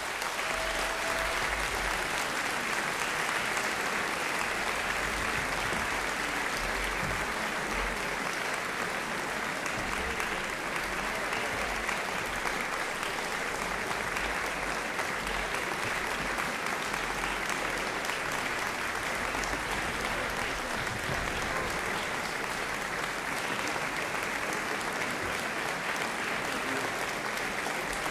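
Concert audience applauding steadily at the close of an orchestral performance, a dense, even clapping that does not let up.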